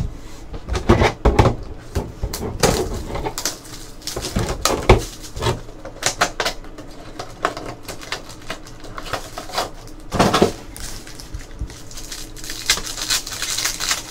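2015-16 Panini Clear Vision basketball card packs being handled and opened close to the microphone: irregular crinkling of wrappers and clicks and taps of packs and cards on the table, with a longer rustle near the end.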